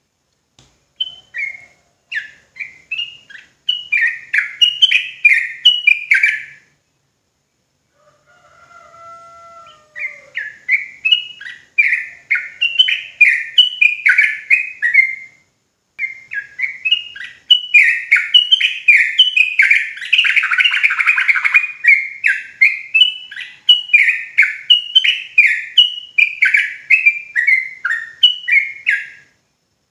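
Yellow-vented bulbul (trucukan) singing its rapid rolling song, long runs of quick, bubbly downslurred notes. There are short breaks about 7 seconds in and again about 15 seconds in, and a few lower, slower whistled notes in the first break.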